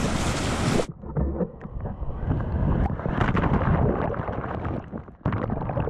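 Wind and surf on the microphone, then about a second in the sound abruptly turns muffled as the microphone goes under the seawater: sloshing wash with faint clicks and bubbling. The open surf sound returns near the end.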